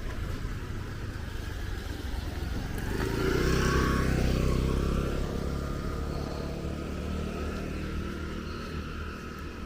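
A motor vehicle passing on the street, growing louder about three seconds in and fading over the next few seconds, over a steady low traffic rumble.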